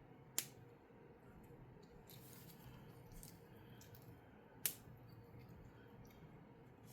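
Two sharp plastic clicks about four seconds apart: Lego pieces being snapped together or set down during building, with faint handling noise between them.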